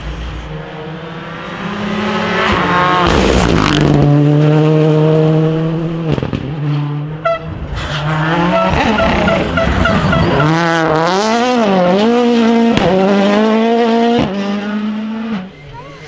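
Rally cars' engines being driven hard past the roadside, one after another, with revs rising and dropping through gear changes and throttle lifts. A few sharp pops cut through the engine sound.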